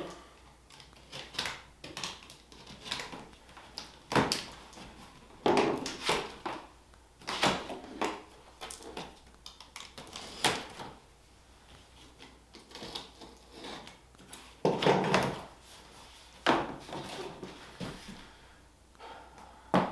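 Cardboard box being opened and handled: irregular knocks, scrapes and flaps of cardboard, with short quiet gaps between.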